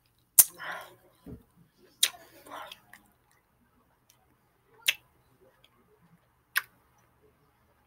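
Mouth sounds of biting and chewing a hard frozen grape: four sharp cracks spread over several seconds, the first two each followed by a brief spell of crunching.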